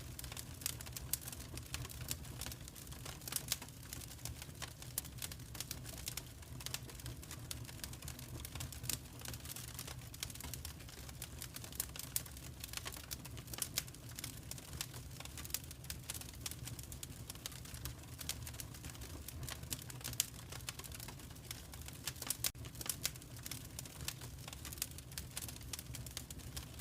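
Wood fire crackling in a fireplace: frequent small irregular pops and snaps over a low steady rumble of the flames.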